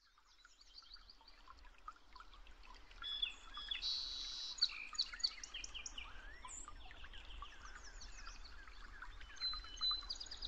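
Many birds calling and chirping at once, a mix of short chirps, quick sweeps and trills that fades in over the first couple of seconds, over a faint low rumble.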